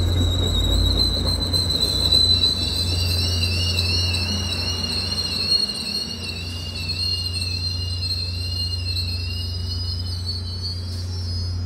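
MBTA commuter rail train braking to a stop, its wheels and brakes squealing on a high, wavering pitch that fades out as it halts, over the rumble of the passing coaches early on and a low steady hum.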